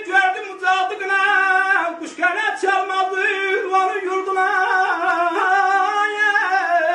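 A man singing an Azerbaijani ashiq song in the Segah mode, in long, wavering held notes, over a saz sounding a steady low note.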